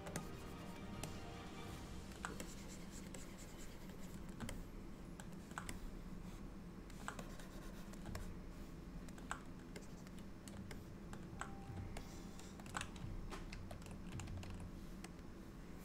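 Irregular, scattered clicks of a computer keyboard over a steady low hum.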